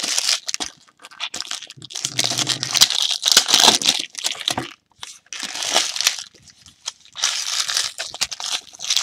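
Sealed trading-card pack wrappers crinkling in several short bursts as the packs are handled and sorted into stacks.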